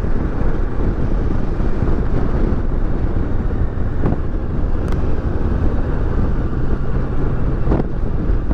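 Kawasaki Versys 650's parallel-twin engine running steadily while riding along the road, mixed with wind noise over the helmet-mounted microphone.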